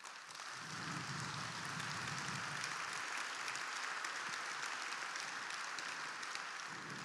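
Large audience applauding: the clapping swells over the first second, holds steady, and dies down near the end.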